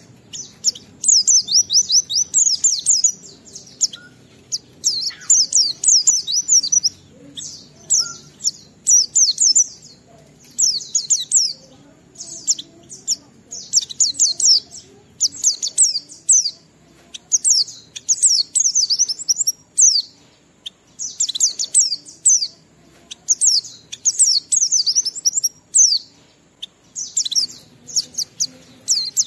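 A white-eye (pleci) in full song: phrases of very rapid, high sweeping notes, each a second or two long, repeated over and over with short pauses between.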